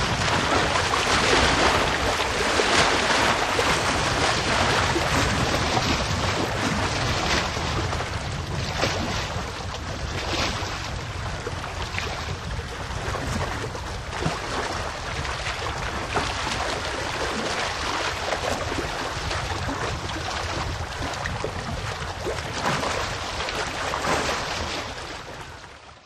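Small wind-driven waves lapping and splashing against a lakeshore, a continuous wash with frequent small splashes, with wind rumbling on the microphone. The sound fades out near the end.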